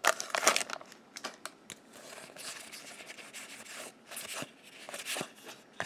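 Foil wrapper of a Magic: The Gathering booster pack crinkling as it is torn open and pulled off, loudest in the first half-second. Then soft rustling and small clicks as the stack of cards is handled and slid apart.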